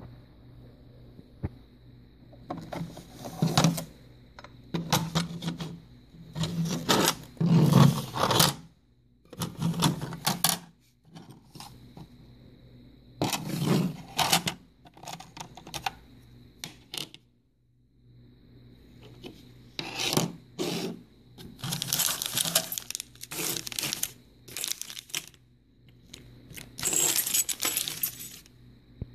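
Irregular handling noises: bursts of scraping, rustling and light clattering that come and go in clusters, with short pauses between. A faint steady high tone runs underneath.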